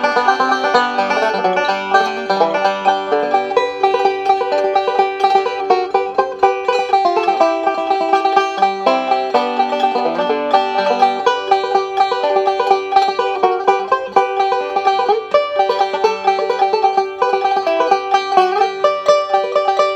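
Banjo instrumental: fast, even picking of plucked notes, with one high note repeated all the way through.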